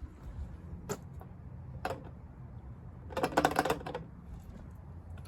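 Handling noise while refuelling a snowblower: a single click about a second in and another near two seconds, then a short burst of clattering about three seconds in, over a low steady hum.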